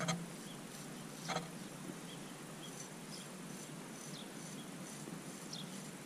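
Opinel carbon-steel pocket knife blade shaving the hair off a forearm: two short scrapes about a second apart near the start. Faint high chirping goes on in the background.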